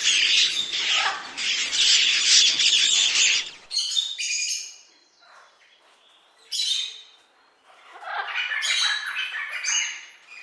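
Birds squawking: a dense, noisy chorus of calls for the first three and a half seconds, then separate harsh calls in short groups with pauses between.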